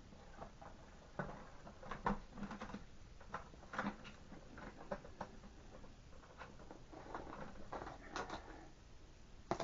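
Scattered light clicks and knocks of hard plastic parts being handled and fitted together: the media baskets of a canister filter being stacked and snapped in.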